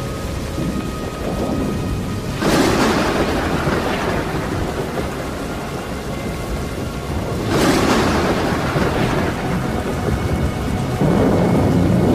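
Thunderstorm with steady rain and two sharp thunderclaps, about two and a half seconds in and again about seven and a half seconds in, each rolling away over a second or two. The rain or rumble grows louder again near the end.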